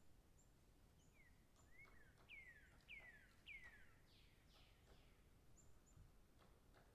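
Faint bird song: a run of about seven whistled notes, each sliding down in pitch, loudest in the middle, with faint short high chirps around it.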